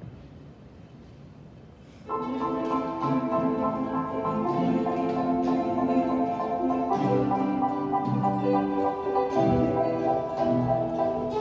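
A group of ukuleles with acoustic guitars starts strumming chords together about two seconds in, after a brief hush, and keeps a steady strummed rhythm with chord changes every few seconds.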